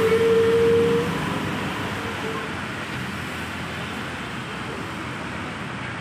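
Steady road traffic noise. In the first second a long, held, steady tone ends, and after that only an even rush of traffic remains.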